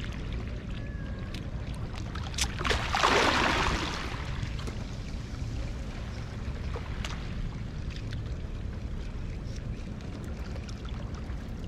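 Shallow river water lapping and sloshing against a rock shore, over a steady low rumble of wind on the microphone. About three seconds in, a louder rush of splashing or swishing lasts about a second, and a few faint clicks are scattered through.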